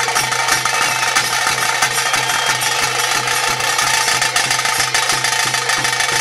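Ritual music: fast, dense drumming played without a break over a steady drone.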